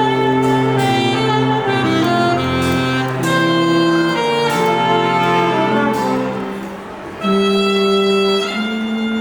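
Live band music with saxophones and brass playing sustained chords in a jazzy style. About six and a half seconds in the playing thins briefly, then a loud held chord comes in.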